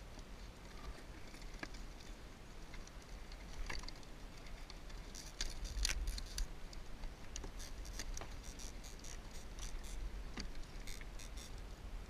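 Irregular light clicks, taps and rattles from handling a hoop net and live lobsters on a kayak, coming thicker about halfway through, over a low rumble.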